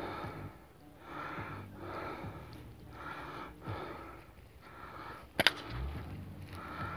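An air rifle fired once: a single sharp crack about five and a half seconds in, followed by a short low thud. Before it there is only a soft rushing noise that swells and fades about once a second.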